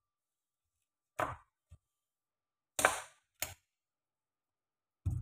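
Food-prep knocks at a kitchen counter: five short, unevenly spaced knocks and clatters as vegetables and a knife are handled on the counter. The loudest comes a little before three seconds in.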